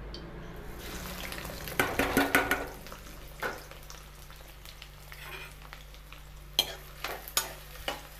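Chopped onions and green chillies dropped into hot oil in a kadhai and sizzling, with a louder burst of sizzle about two seconds in as they hit the oil. A few sharp metal clinks on the pan near the end.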